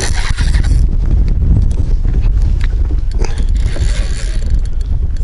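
Wind buffeting the microphone in an open boat: a loud, steady low rumble with a faint hiss and scattered small knocks.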